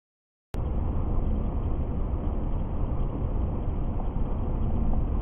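Steady low rumble of a car driving along a road, tyre and engine noise heard from inside the cabin, cutting in abruptly about half a second in.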